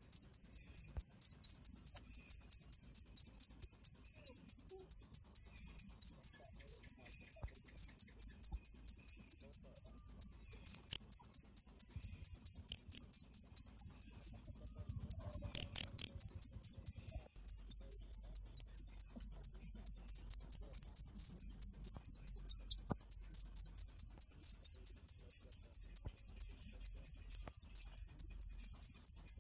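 Cricket chirping at night: short, high-pitched chirps in a steady, even rhythm of about four a second, with one brief break about two-thirds of the way through.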